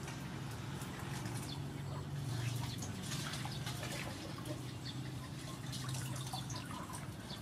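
Water splashing and dripping in a basin as river prawns are washed by hand and lifted out, with many small scattered splashes over a low steady hum.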